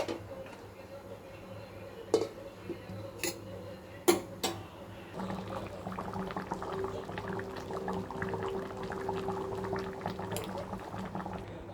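A few sharp knocks of a utensil against a cooking pot, then, from about five seconds in, a steady crackling bubble of food cooking in the pot.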